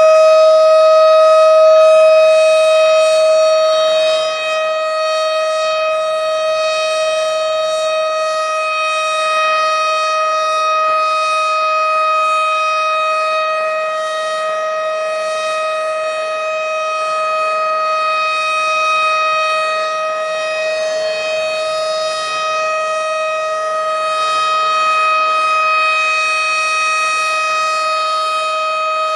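Tornado warning siren sounding one steady, unwavering tone, loud and held without rising or falling, dropping slightly in loudness about four seconds in.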